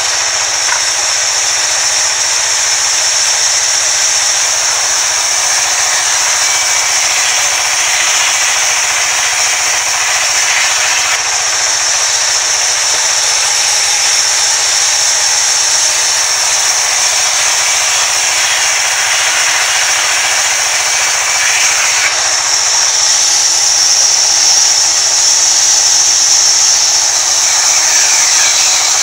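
Sawmill band saw running and cutting planks fed through its blade: a loud, steady, high-pitched hiss. It grows a little louder about three-quarters of the way through.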